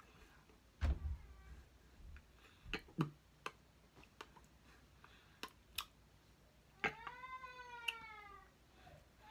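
A cat meowing: one long drawn-out call, slowly falling in pitch, starting about seven seconds in, with another beginning at the very end. Before it, a scattering of soft clicks and taps.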